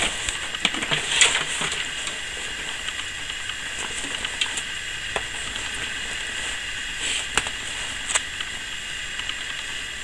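Insulated copper wire being pulled through a homemade pipe-cutter wire stripper, its cutter wheel slitting frozen plastic insulation: a steady scraping hiss with a few scattered clicks and crackles.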